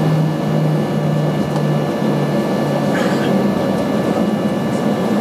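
Cabin noise inside a Boeing 737-800 as it taxis: the CFM56 jet engines run steadily at low power, giving a constant hum with faint, steady whining tones above it.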